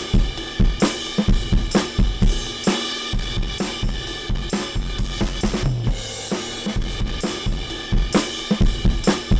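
Recorded drum kit groove, with kick, snare and a washy ride cymbal, played back through analog saturation in all-wheel-drive wideband mode, with compression pumping on the ride cymbal.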